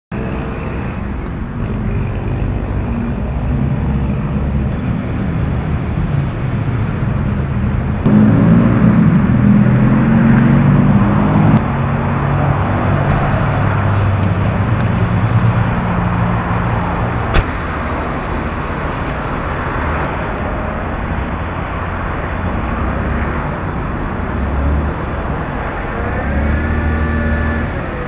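Street traffic: car engines running and vehicles passing, louder for a few seconds about a third of the way in, with one sharp click in the middle.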